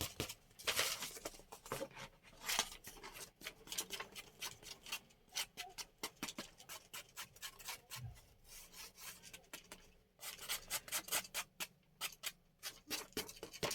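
Paper and craft materials being handled by hand during embossing work: a run of irregular rubs, scrapes and small taps.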